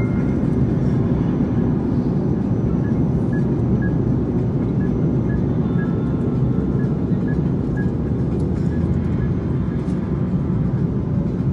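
Steady low roar of a jet airliner's cabin at cruise, engine and airflow noise heard from a window seat. Faint high music notes repeat in small groups in the background through the middle of the stretch.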